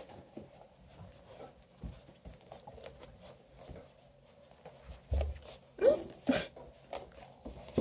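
Bluetick Coonhound puppies scuffling and play-wrestling on a quilt: soft rustling and pawing, a low thump about five seconds in, and a brief puppy vocalization shortly after.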